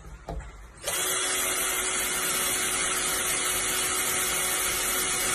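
Cordless drill starting about a second in and running at a steady speed without let-up as it drills into the metal frame upright.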